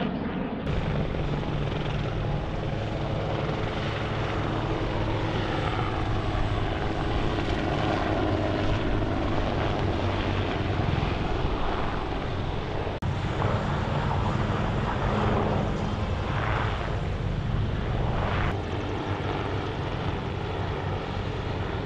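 Marine Corps CH-53E Super Stallion heavy-lift helicopter running close by as it hovers low and sets down: a steady low rotor drone under turbine whine, with whines that glide in pitch partway through. The sound changes abruptly a few times.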